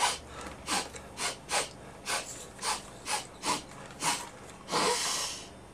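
A man sniffing hard through his nose, about ten short quick sniffs roughly twice a second, then one longer drawn-out breath near the end.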